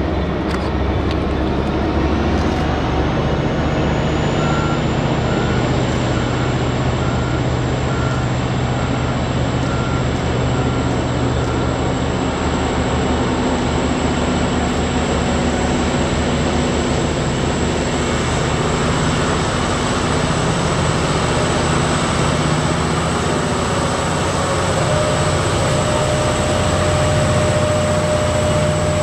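BelAZ 75710 diesel-electric mining dump truck, powered by twin MTU 16-cylinder diesels, driving past with a steady low drone. A high whine rises in pitch over the first few seconds and then holds steady.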